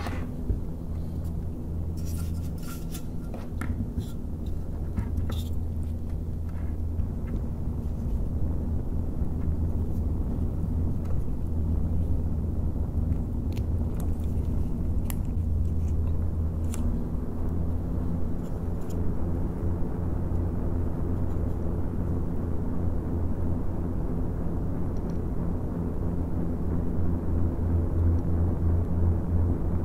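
Noctua NF-A14 PWM 140 mm case fans running on USB power rather than their rated 12 V, blowing away from the microphone: a steady low hum with airflow rush. A second fan joins about halfway through and the rush grows louder and fuller, with a few light clicks in the first half.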